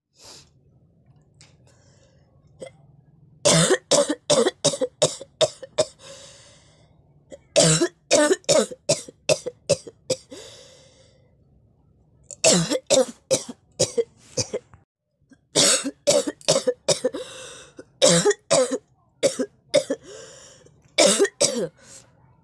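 A person coughing on purpose in rapid fits: about six bouts of several quick, harsh coughs each, starting about three seconds in, with breaths drawn in between bouts.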